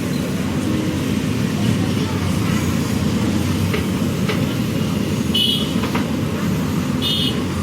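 JCB backhoe loader's diesel engine running steadily under work, with two brief high-pitched squeals about five and seven seconds in.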